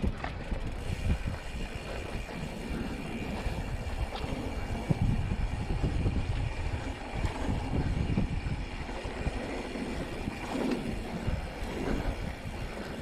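A mountain bike rolling over sandstone slickrock: tyre rumble and the bike's rattle, mixed with wind buffeting the rider's camera microphone. A few brief knocks come from bumps in the rock.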